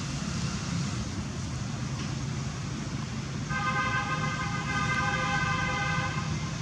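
Steady low rumble of distant road traffic. Halfway through, a steady horn-like tone comes in and holds at one pitch for about three seconds before cutting off.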